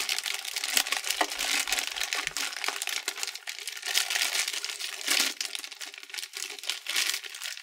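Thin clear plastic bag crinkling and crackling continuously as hands work it off a bundle of sleeved power-supply cables.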